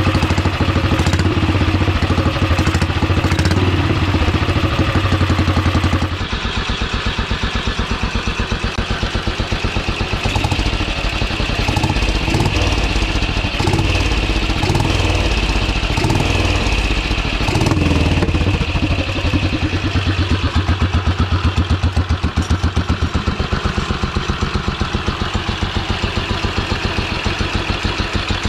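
Newly built, tuned Ariel 500 single-cylinder four-stroke motorcycle engine running. The sound changes abruptly about six seconds in, the engine is revved a few times between about ten and eighteen seconds in, and then it settles to an even idle with clearly separate firing pulses.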